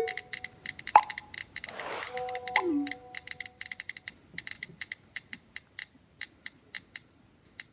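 The song's beat winding down: a few held synth notes and a soft whoosh, then light clock-like ticks about four a second that grow fainter and sparser toward the end.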